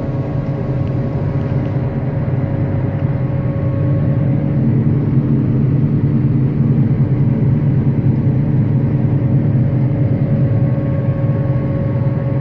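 Combine harvester running steadily while cutting grain: a constant engine-and-machinery drone with a steady hum, growing a little louder a few seconds in.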